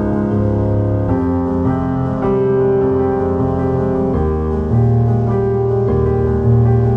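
Soft background piano music, slow sustained chords changing about every second or two.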